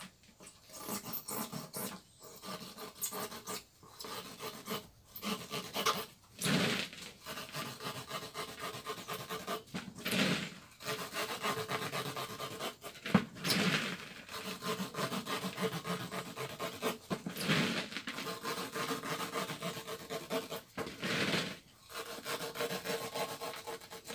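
A knife cutting through the rubber of a car tyre along the bead, in repeated sawing strokes with short pauses between them, as the bead ring is cut away from the sidewall.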